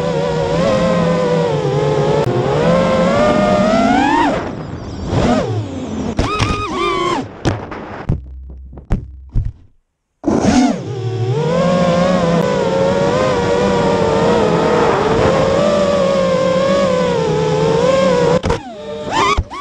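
Armattan Chameleon Ti FPV quadcopter's four Xing 2306 2450kv brushless motors and propellers whining, the pitch rising and falling with throttle, heard through its onboard GoPro. The whine drops away about four seconds in during a flip, comes back in short bursts, and goes nearly silent for a couple of seconds. About ten seconds in it returns steadily, then falls away near the end.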